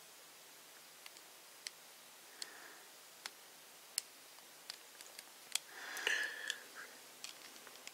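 Faint, irregular clicks and taps of hard plastic as a small action figure's hinged hand is closed around the square handle of its hammer weapon, with a short rub of plastic on plastic about six seconds in.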